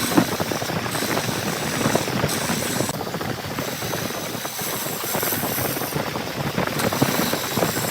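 Engine-driven machinery running steadily, with a continuous rattle.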